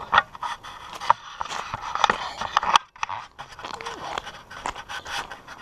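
Footsteps and scraping, rustling handling noise from a handheld camera as a person walks, in an irregular run of clicks and scuffs.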